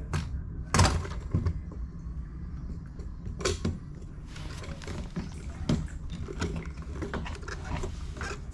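Scattered knocks and clatter of tools and parts being handled during shop work, the loudest knock about a second in, over a steady low hum.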